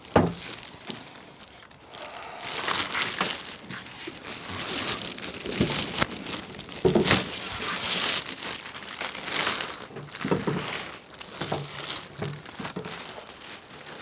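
Packaging being handled and pulled away, crinkling and rustling, with a few dull knocks in between.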